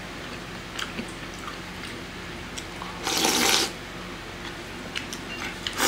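A person slurping thick ramen noodles: one long wet slurp about three seconds in, with a few light clicks of chopsticks against the bowl before and after.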